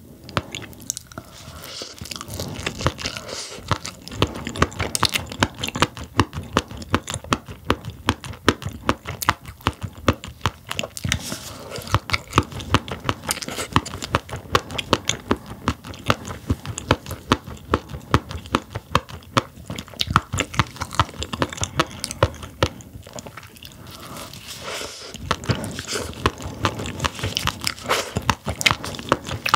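Close-miked chewing of steamed sailfin sandfish roe: a dense, rapid run of crunchy clicks and pops as the firm eggs are bitten and chewed.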